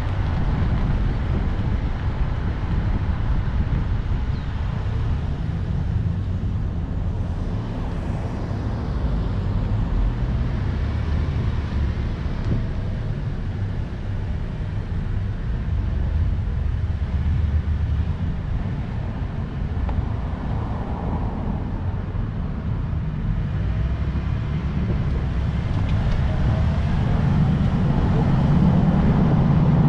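Car driving along, heard from inside the cabin: a steady low engine and road rumble that grows louder near the end.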